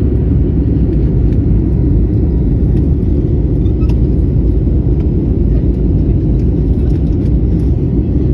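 Steady low rumble of an airliner's jet engines and rushing air, heard inside the passenger cabin during the climb.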